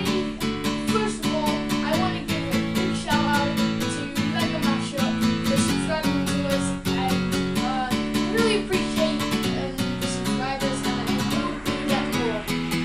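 Intro music: a strummed acoustic guitar at a steady, even pulse with a melody line over it.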